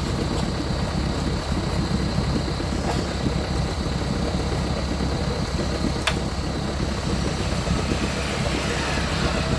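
Off-road 4x4 vehicle's engine running steadily at low revs, with a sharp click about six seconds in.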